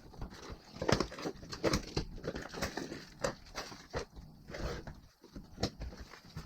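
Irregular small clicks, knocks and rustles of parts and packaging being handled.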